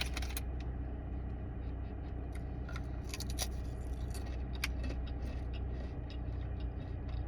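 A thin, crisp white cracker being bitten and chewed: a scattering of short, sharp crunches over a steady low hum.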